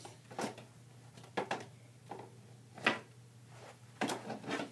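Hockey stick blade knocking a ball and the floor while stickhandling: a scatter of short, sharp knocks at an uneven pace, some in quick pairs, over a low steady hum.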